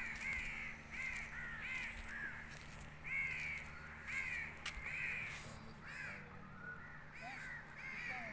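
Birds calling in a rapid, steady run of short arched calls, about two a second, several overlapping one another.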